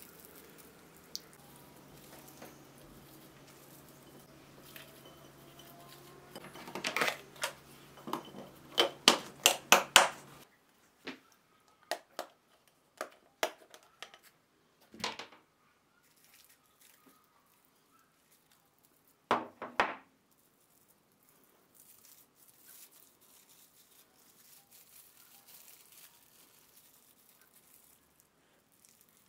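Plastic cling film crinkling and crackling as it is peeled off black sesame filling balls. The crackles come in a dense run of sharp bursts from about six to ten seconds in, then thin out to scattered light plastic clicks and taps, with two quick snaps near twenty seconds.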